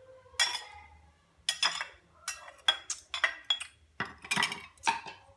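Metal utensils clinking against a metal pan and dishes: about ten sharp, short-ringing clinks at an uneven pace, bunched most closely about four seconds in.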